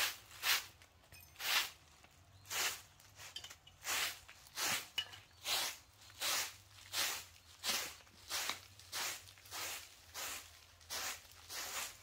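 A broom of dried grass stems sweeping bare dirt ground: even swishing strokes at about one and a half a second, with a brief pause about a second in.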